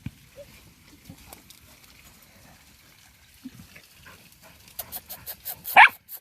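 Dogs digging and scratching at dirt, with snuffling and scraping, then a quick run of rapid digging strokes about five a second in the last second and a half, capped by one short, loud call from a dog.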